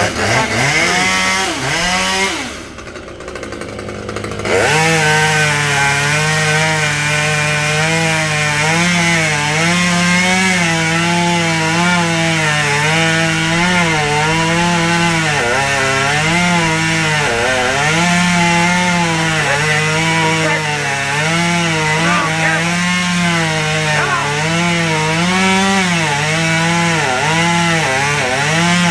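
Chainsaw cutting wood, its engine pitch sagging and rising again and again as the chain bites. It drops off briefly about two seconds in, then comes back at full speed.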